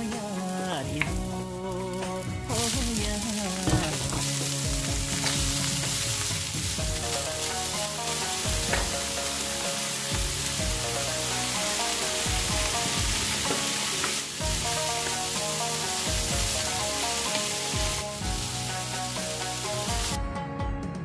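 Vegetables stir-frying in hot oil in a frying pan: a loud, steady sizzle that starts about two and a half seconds in and cuts off suddenly near the end. Background music plays underneath.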